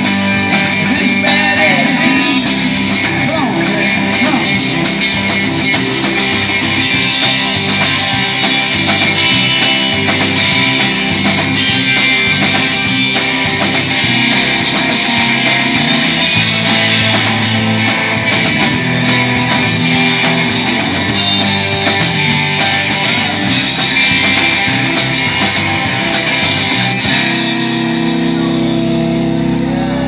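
Live band playing a song on electric and acoustic guitars over drums. Near the end the playing settles into sustained ringing notes.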